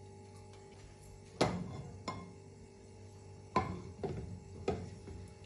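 Sharp knocks of cookware on the stovetop as a nonstick frying pan is handled and tilted to spread olive oil: two knocks between one and two seconds in, then three more close together in the second half.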